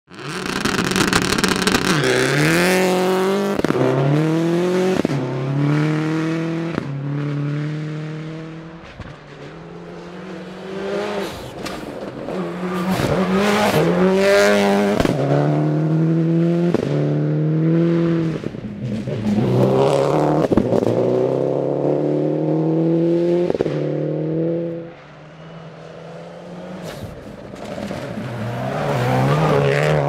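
Subaru WRX STI rally car's turbocharged flat-four engine at full throttle on a gravel stage, its pitch climbing and dropping back again and again as it shifts up through the gears, with sharp cracks between the shifts. It passes close several times, fading to a distant drone twice.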